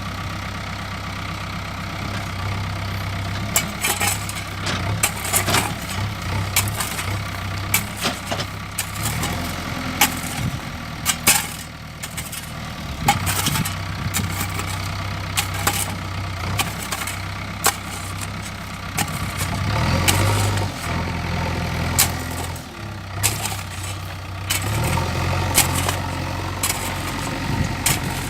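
JCB 3DX backhoe loader's diesel engine running, its note rising and falling several times as the load changes, with frequent sharp knocks and clanks over it.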